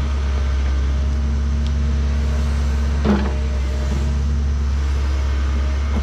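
Diesel engine of heavy earthmoving equipment running steadily, with one brief clunk about three seconds in.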